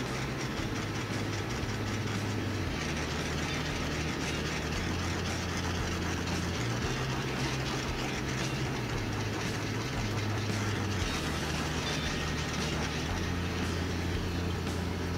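Windproof butane jet-flame lighter burning with a steady hiss and an uneven low rumble underneath.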